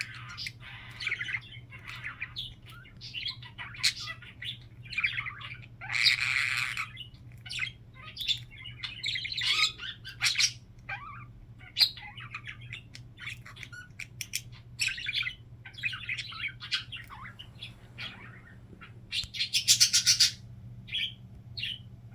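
Pet budgerigar warbling and chattering: a continuous string of short, varied chirps and squawks. There is a loud harsh squawk about six seconds in and a loud buzzy, rattling call near the end.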